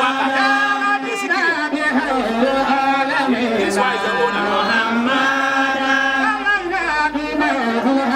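A voice chanting a melodic Islamic recitation in long, held notes that slide up and down, over a steady low tone.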